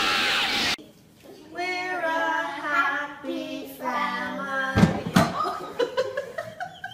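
A young child singing loudly in held, stepping notes, then a couple of thumps about five seconds in as he drops onto a tiled floor. A loud noisy burst from the previous clip cuts off under a second in.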